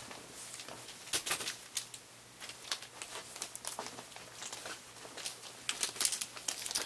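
A small plastic bag of loose parts being handled: irregular crinkling and rustling with light clicks of the pieces inside.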